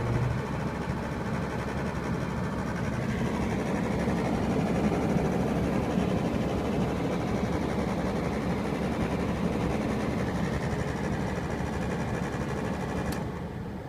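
Suzuki Kei heater blower fan motor running with a steady buzzing drone, the abnormal "boo" noise of a faulty motor. The sound eases off slightly near the end.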